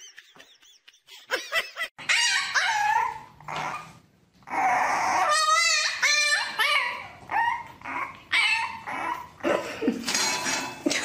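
A puppy yipping and whining: a quick run of short, high cries that bend and waver in pitch, starting about two seconds in.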